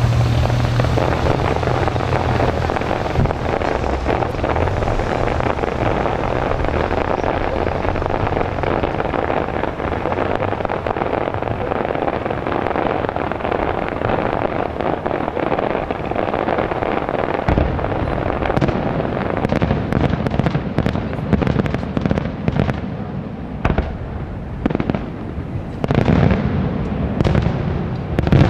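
Aerial fireworks going off in a dense, continuous barrage of overlapping bursts. After about seventeen seconds it thins into separate sharp bangs, with a louder cluster near the end.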